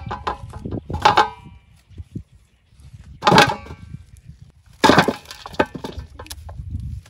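Giant swamp taro corms tumbling out of a woven bamboo basket into a metal basin: three clusters of heavy knocks, about a second in, past three seconds and near five seconds, the basin ringing briefly after the first.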